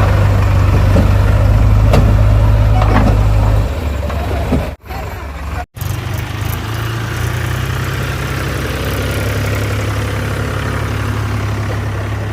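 Heavy diesel engine running steadily. Its sound drops in level about three and a half seconds in and cuts out briefly twice around five seconds in, then runs on more quietly.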